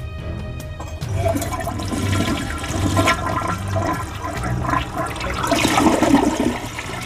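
A toilet flushing: the rush of water starts about a second in, grows loudest near the end and then stops.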